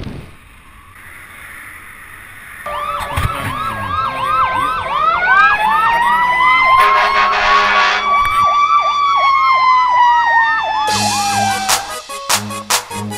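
Soundtrack music opening with a siren sound effect: a fast warbling wail, joined by a slower wail that rises and then falls, before a drum beat comes in near the end.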